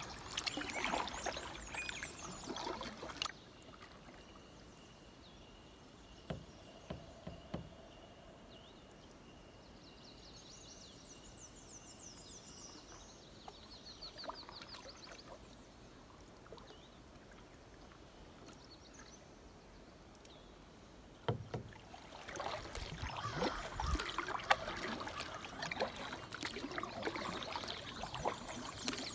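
Canoe paddle strokes in calm water: splashing and dripping from the blade, with small knocks, loudest in the first few seconds and again in the last several. Between them is a quiet stretch where a bird sings faintly.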